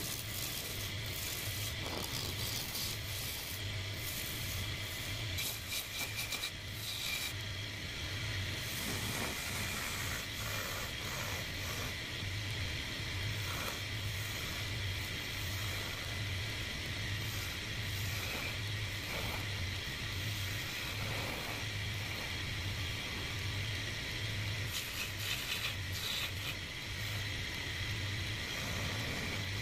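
Wood lathe running with a steady hum that pulses evenly, while a hand chisel cuts into the spinning wooden blank with a continuous scraping hiss and bits of clatter from flying chips.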